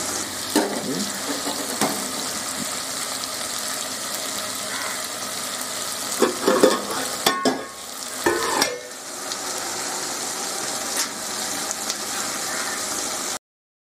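Mutton curry cooking in an aluminium pot with a steady sizzling hiss, and a few clinks and knocks of a utensil against the pot about six to nine seconds in. The sound cuts off suddenly near the end.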